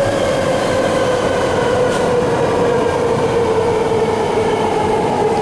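BART rapid-transit train passing close by: a loud, steady rail noise with a whine that slowly falls in pitch.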